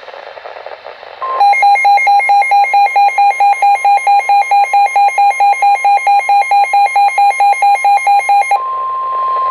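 Emergency Alert System warning tones: after about a second of static hiss, a loud rapidly pulsing alarm beeps about five times a second for some seven seconds, then gives way to a steady single tone.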